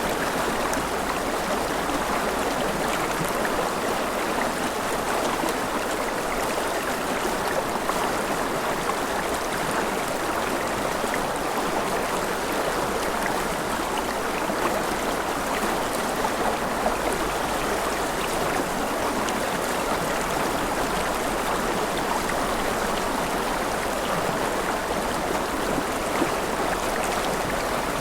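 Mountain river flowing steadily over rapids: an even, unbroken rush of water.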